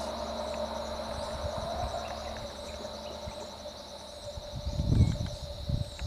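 Insects buzz steadily in a high, even drone with a fast pulsing note above it. A lower hum fades away over the first couple of seconds, and a brief low rumble comes about five seconds in.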